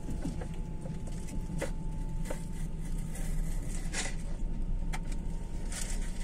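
Passenger train coach running along the track, heard from inside the carriage: a steady low rumble with sharp clicks from the wheels on the rails, roughly one a second.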